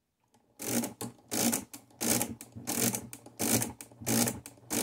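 Original Odhner Model 7 pinwheel calculator's crank handle being turned over and over, about six full turns roughly 0.7 s apart starting half a second in. Each turn is a whirring clatter of the pinwheels and register gears, cranked repeatedly to carry out a division by repeated subtraction.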